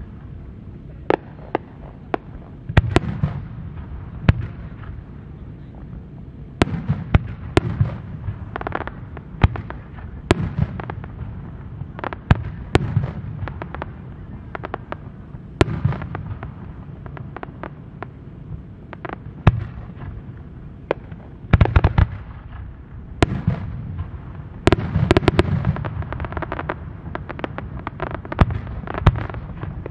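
Aerial firework shells bursting overhead: a long run of sharp bangs at irregular intervals, each trailed by a low rumbling echo. The bangs come thickest in two clusters about two-thirds of the way through.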